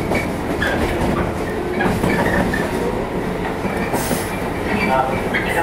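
Running sound of a JR 115 series electric multiple unit in motion, heard from inside the car: a steady rumble of wheels on rail with the clatter of the track, and a faint squeal of wheels near the end.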